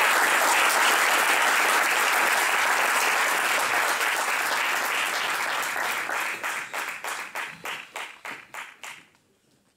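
Audience applauding: dense clapping that thins into scattered single claps from about six seconds in and dies away near the end.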